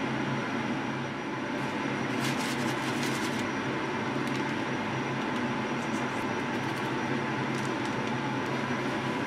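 Steady machine-like hum and hiss, with a few short scrapes and rustles of a spatula on baking paper and foil about two to three seconds in and again near the end.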